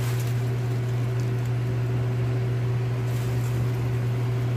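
Steady low hum of a running kitchen appliance's motor or fan, with a fainter higher tone above it and no change in level.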